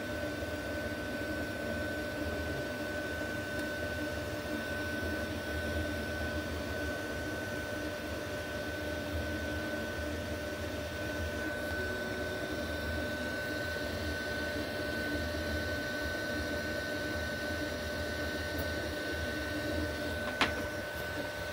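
Anycubic Kobra 3 3D printer running in silent mode while laying down the first layer: a steady whir of its fans and stepper motors with a constant high tone. A single sharp click comes near the end.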